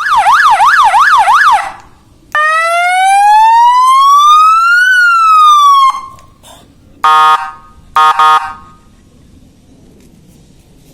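Electronic three-tone siren being tested. It runs a fast yelp warbling about three times a second and cuts off, then one slow wail rising and falling, then a short horn blast followed by two quick horn blasts.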